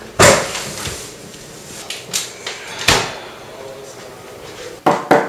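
Knocking on a door: a heavy knock just after the start, another about three seconds in, then a quick run of knocks near the end.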